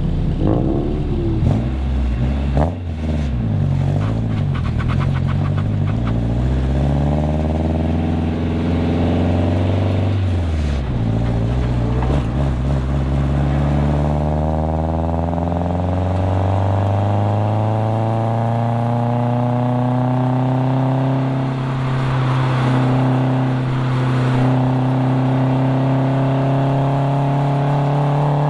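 Nissan 240SX's KA24DE four-cylinder engine through a cat-back exhaust, running hard under acceleration. Its pitch rises and falls several times, drops sharply about ten seconds in, then climbs slowly and steadily for the rest.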